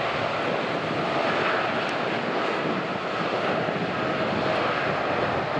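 Jet airliner engines running: a steady rushing noise with a faint, even whine through it.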